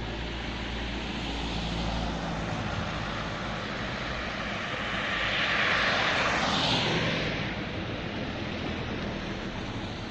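Street traffic noise, with a car passing close by: its tyre and engine noise swells to its loudest about six seconds in, drops in pitch as it goes past, and fades.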